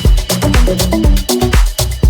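Electronic dance music: a heavy kick drum about twice a second under a stepping bass line, with hi-hat ticks on top.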